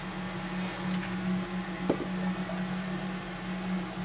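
Solder fume extractor fan running steadily at fan speed 3: a steady airy rush over a low hum, with a small tick about two seconds in.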